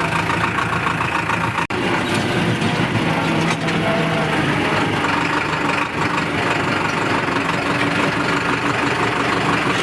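Powertrac tractor's diesel engine running steadily under way.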